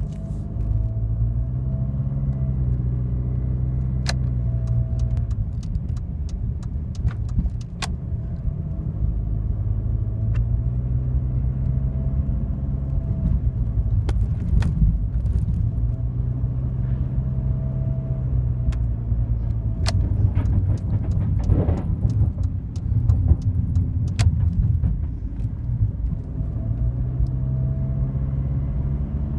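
Jeep Liberty CRD's 2.8-litre four-cylinder turbodiesel running with a whine whose pitch shifts up and down with engine speed, alongside scattered sharp clicks and rattles.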